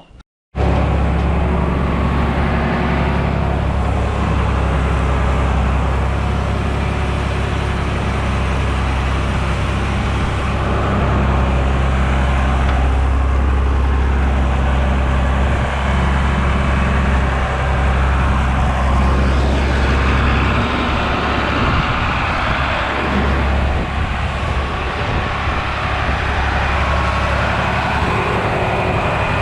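A vehicle engine running steadily at an even speed, a low drone with a noisy spread over it; the note shifts a little about two-thirds of the way through.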